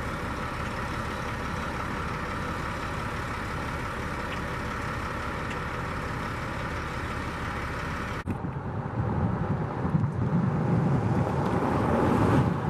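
Military truck's diesel engine idling steadily. About eight seconds in the sound cuts abruptly to an uneven low rumble that rises and falls.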